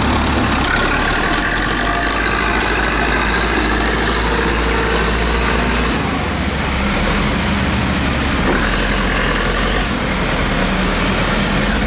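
Farm tractor engine running steadily while the tractor works through deep mud; its low note shifts about six seconds in.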